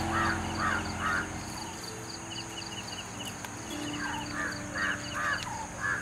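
A bird calling in two runs of about four short, rough calls, one at the start and one about four seconds in, over a steady high insect drone.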